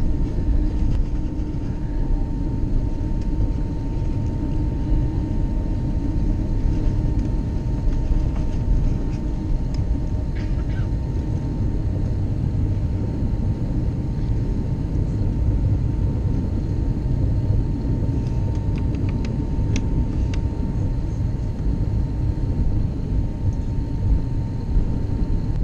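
Cabin noise of an Airbus A321neo taxiing, its Pratt & Whitney PW1100G geared-turbofan engines at idle: a steady low rumble with a thin constant tone above it. A few faint light ticks come about ten and twenty seconds in.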